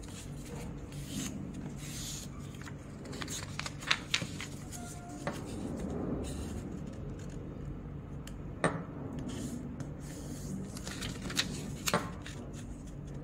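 A sheet of paper rustling and rubbing as it is folded and creased flat by hand, with a handful of sharp crisp snaps, the loudest about four seconds in, near nine seconds and near twelve seconds. A steady low hum runs underneath.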